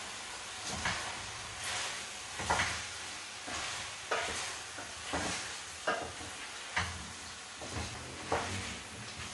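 Chicken and potato pieces frying in a stainless steel pan, sizzling steadily while a wooden spoon stirs them, scraping and knocking against the pan about once a second.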